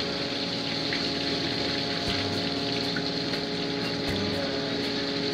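A fishing boat's engine running steadily under rushing water, with a few faint clicks.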